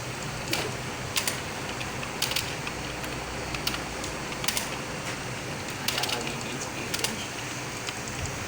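Computer keyboard keys struck slowly and unevenly during a home-row typing test, about one keystroke a second with some in quick pairs, over a steady low hum.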